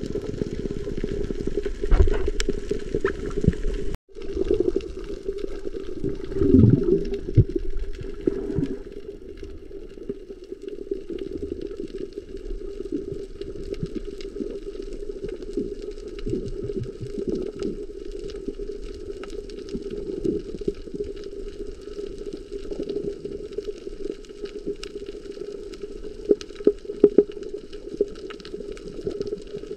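Underwater sound heard through a camera housing: a steady muffled hum and rush with bubbling and gurgling, louder gurgles coming a few times. The sound cuts out for an instant about four seconds in.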